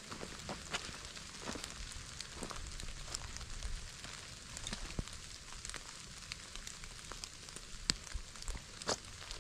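Footsteps on pine-needle and leaf litter along a trail: scattered light crackles and ticks at an uneven pace over a soft steady hiss.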